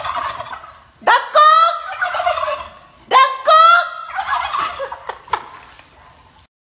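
Turkey gobbling: two gobbles, about a second in and again about two seconds later, each a quick rattling run of notes ending in a held note, with the tail of an earlier gobble at the start.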